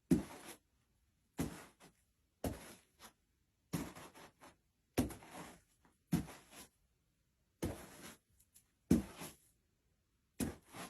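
Skate strides performed for Foley: a steady rhythm of strokes about once every second and a quarter, each a sharp hit trailing into a short scrape.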